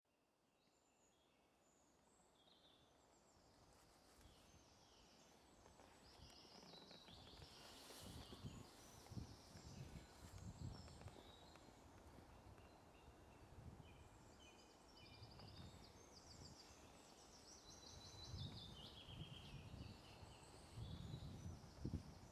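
Several songbirds singing in woodland, a busy mix of short chirps and trills, fading in over the first several seconds, with soft low thumps now and then.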